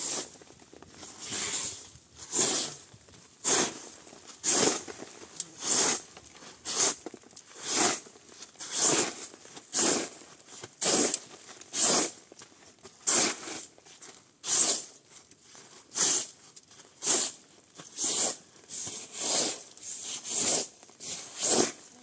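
A broom made of a bundle of dry stems sweeping across a canvas tent floor: short scraping swishes, one about every second, starting about a second in.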